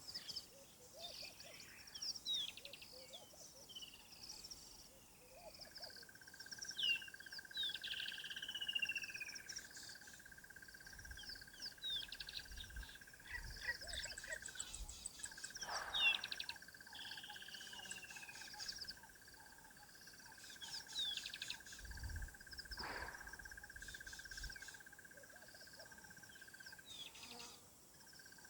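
Several wild birds calling, with many short chirps and a few downward-sliding whistles, over a steady high trill that stops and restarts. Two brief knocks stand out, about a third and three quarters of the way through.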